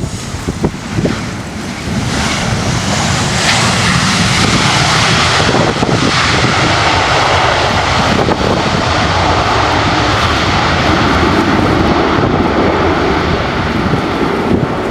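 Jet airliner engines passing close by. They build up over the first two seconds and then hold a loud, steady roar. A few thumps of wind on the microphone come near the start.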